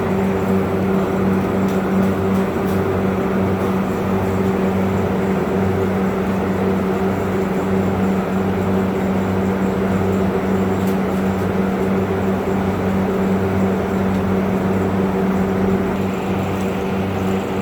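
Steady machine hum with a low throb pulsing a little under twice a second.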